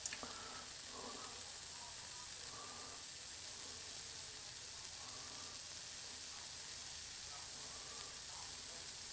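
Diced chicken in taco seasoning frying in a pan, with a steady sizzle.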